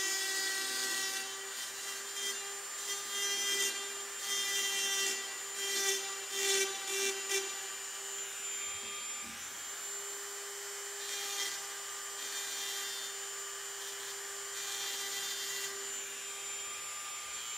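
Dremel rotary tool with a flap wheel grinding into aluminium wing skin: a steady high motor whine under a rasping grind. The grind surges and falls in the first half and turns steadier in the second half.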